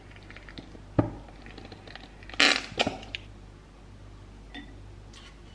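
Plastic squeeze bottle of sriracha mayonnaise squirting and spluttering out air as it is squeezed. There is a knock about a second in, then a loud splutter about two and a half seconds in and a shorter one just after.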